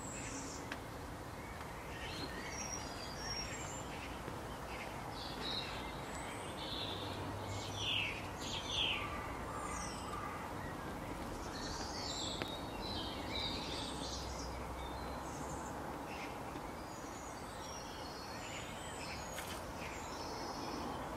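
Several small birds chirping and singing over a steady background hiss, with two louder calls about eight seconds in.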